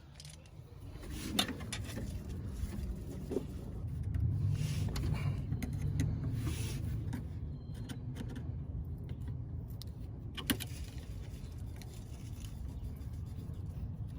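Hand tools clinking and clicking against metal in scattered, sharp ticks over a steady low rumble.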